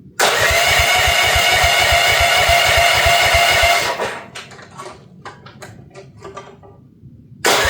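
Future FT15 mini excavator's petrol engine being cranked by its electric starter: a starter whine over a fast, even chugging for about four seconds without catching. A few faint clicks follow, then cranking starts again near the end. The engine is hard-starting in the cold, with the choke taken off too soon.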